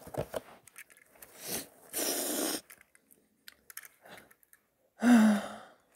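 A person crying quietly: sniffs and unsteady breathing, with a loud noisy sniff about two seconds in and a short voiced sob about five seconds in.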